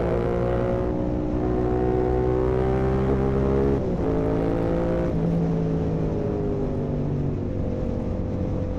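Yamaha R7's parallel-twin engine through an Akrapovic full carbon exhaust with the dB killer removed, running under throttle with its pitch climbing slowly. The pitch drops abruptly about four seconds in and again about a second later, then holds steady.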